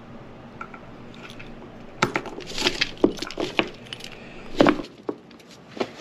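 Small metal BX-to-knob-and-tube termination fittings clinking and clicking against each other as they are set down in a pile. The clinks start about two seconds in and come in a quick irregular run, with the loudest knock near the end.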